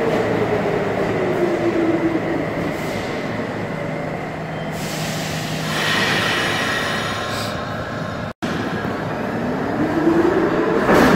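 R46 subway train running through the station: motor whine falling in pitch over the first couple of seconds, a burst of hiss about six seconds in, then after a momentary dropout the whine rising again as the train pulls away.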